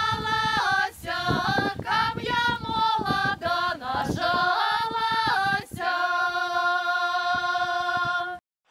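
Women's folk choir singing a Belarusian folk song unaccompanied, in several voices. About two-thirds of the way in the voices settle on a long held chord, which cuts off abruptly near the end.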